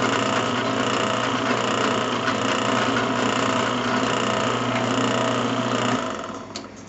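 Drill press running, its bit drilling a hole through a steel sprocket plate, a steady motor hum under a dense cutting noise; it stops about six seconds in and winds down.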